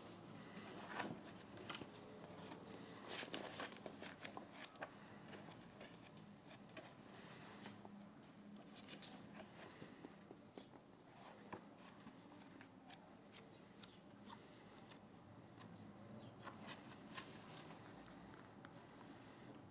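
Faint paper rustling and crinkling as crumpled packing paper and the pages of a hardback book are handled and turned: scattered small crackles and clicks, busiest in the first few seconds.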